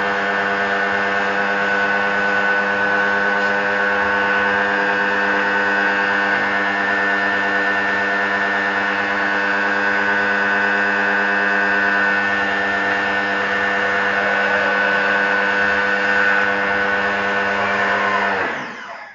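Lotus electric pressure washer running: a steady, loud motor drone with a whine. Near the end it is switched off and the pitch falls as the motor winds down and stops.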